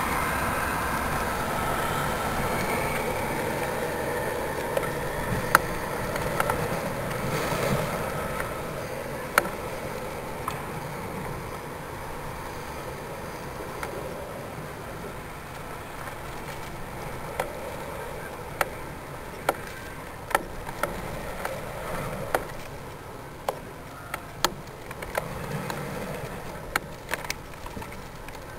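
Steady rushing noise on the microphone of a camera carried aloft under a high-altitude balloon, fading gradually as it climbs away from the ground. Irregular sharp clicks and knocks break in from time to time, more often in the second half, as the payload swings on its flight string.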